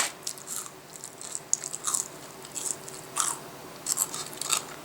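A person chewing crispy microwaved french fries close to the microphone, with short crunches at irregular intervals.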